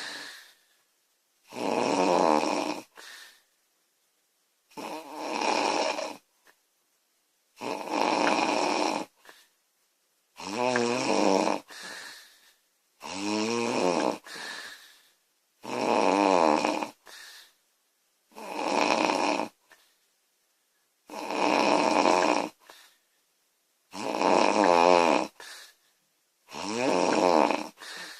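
A woman snoring loudly in a regular rhythm: about ten snores, one roughly every two and a half to three seconds, each lasting about a second with silence between.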